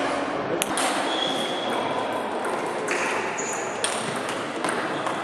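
Table tennis ball clicking against bats and the table: a few sharp, separate knocks, with the echo of a large sports hall behind them.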